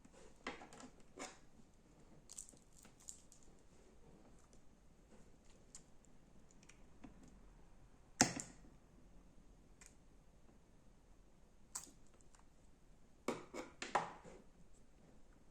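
Slime being handled, giving scattered soft clicks and crackles. The loudest snap comes about eight seconds in, and a short cluster of crackles comes near the end.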